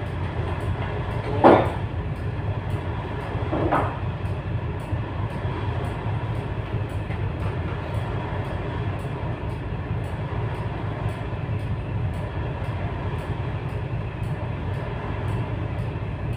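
Steady low rumble of a ship's engines and machinery heard inside the wheelhouse. A short, loud sound comes about a second and a half in, and a weaker one just before four seconds.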